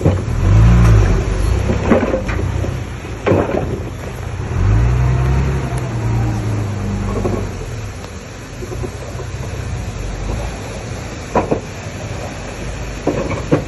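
Diesel engine of heavy earthmoving machinery running, revving up and easing off twice, with several sharp clanks in between.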